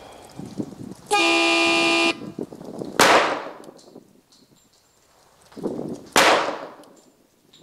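A steady one-second horn-like start signal sounds about a second in, then a CZ-97 .45 ACP pistol fires two shots about three seconds apart, each with a short echo trailing off.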